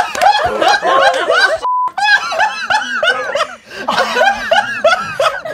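A group of people laughing hard together, many voices overlapping. About a second and a half in, the laughter cuts out for a moment under a brief steady beep.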